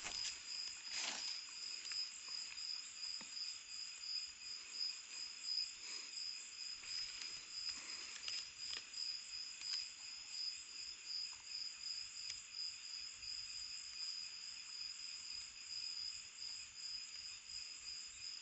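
Night-time insect chorus: a steady, high-pitched pulsing trill, with a few faint rustles and knocks from handling the net and sack.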